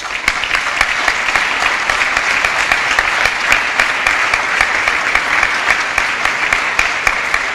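Audience applause: many people clapping at an even level.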